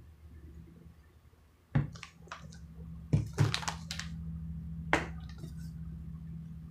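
Handling noises: a few sharp knocks and clicks, over a steady low hum that sets in just before two seconds in.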